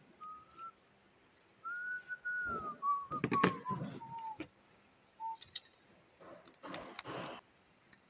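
A person whistling softly: a short note, then a long note that drifts slowly down in pitch, then a brief one. A few sharp clicks come about halfway through and a short rustle near the end, from handling a screwdriver and a plastic lamp holder.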